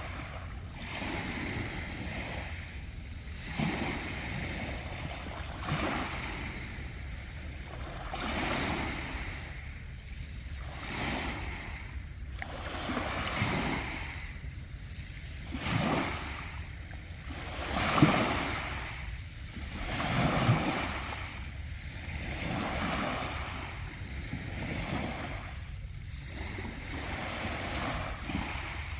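Sea waves breaking and washing up a round-pebble beach, one surge every two to three seconds, with the biggest wave about two-thirds of the way through.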